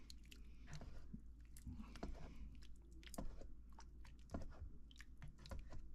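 Cooked meat being mashed and broken up in a pot with a utensil: faint, irregular wet squelches and small clicks.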